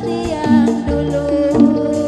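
Javanese gamelan playing the accompaniment for a jathilan dance: struck metallophones hold ringing notes over a steady drum pattern.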